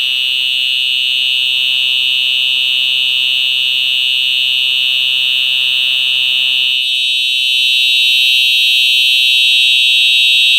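Simplex TrueAlert 4903-9425 electronic horn strobe sounding a steady, unbroken high-pitched tone, really loud. About seven seconds in, a faint low hum under it drops away and the tone gets slightly louder.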